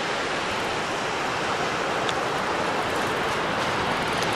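Steady wash of surf breaking on a sandy beach, with a faint click about two seconds in.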